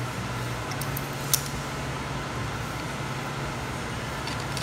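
Metal parts of a BPLUS Apollo hand coffee grinder clicking as the burr and shaft assembly is drawn out of the grinder body. There is one sharp metallic click about a second in and a few fainter ticks, over a steady low hum.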